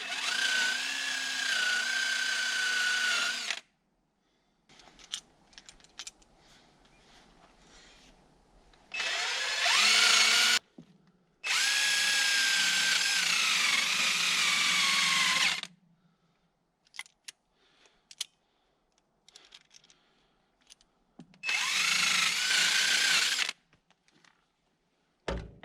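Power drill running in four bursts of a few seconds each, its whine sagging in pitch under load in the longest one, cleaning corrosion off a backhoe's starter and ground cable connections. Light clicks and taps in between.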